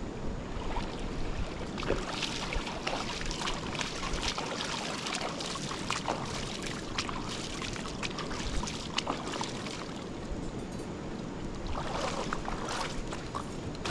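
Steady rush of a stream's running water, with irregular clicks and rustles over it.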